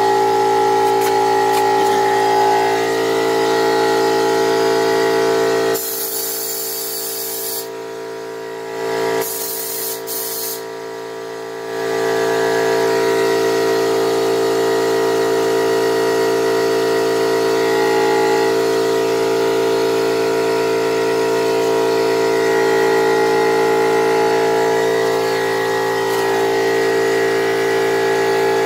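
Air compressor running steadily with a pitched motor hum. About six seconds in, and again near ten seconds, the hum drops and air hisses for a second or so.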